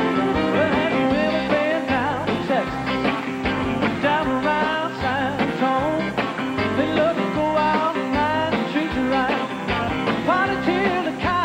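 Country band playing an up-tempo song live, with guitar prominent.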